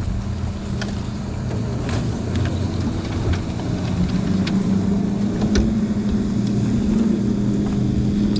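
Outboard boat motor running steadily with a low hum that grows a little louder from about halfway through, along with a few light knocks and rustles of gear on the deck.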